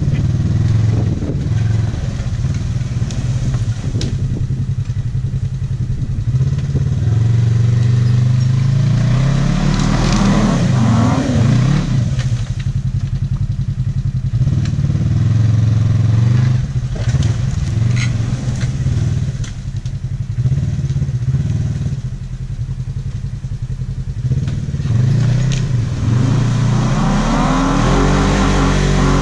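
Polaris RZR XP 1000 side-by-side's engine running hard under load as it pulls a stuck pickup on a tow line, revving up in several surges with lulls between.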